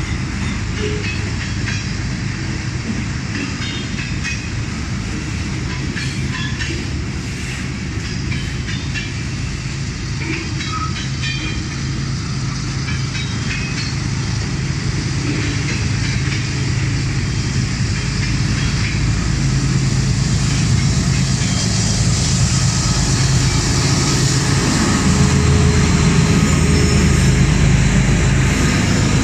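Freight train rolling past at close range, its tank cars and other freight cars clattering over the rails with scattered sharp clicks. Over the last third a mid-train diesel locomotive draws alongside, and its engine's steady low drone grows louder.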